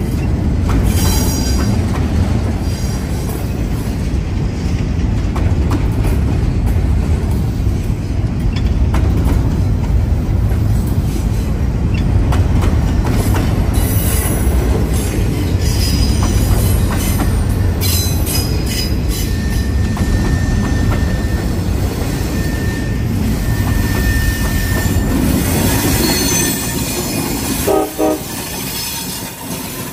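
Double-stack intermodal train passing close by: a steady loud rumble of well-car wheels on the rails, with intermittent high-pitched wheel squeal and a held squeal tone in the middle. Near the end the rear locomotive passes.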